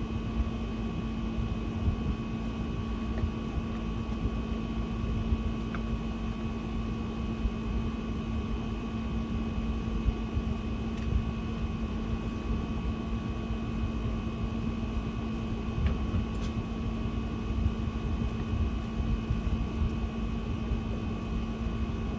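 A steady machine hum with a low rumble and a few high, even whining tones, broken only by a few faint clicks.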